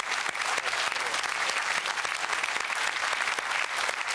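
Studio audience and game-show contestants applauding: many hands clapping steadily.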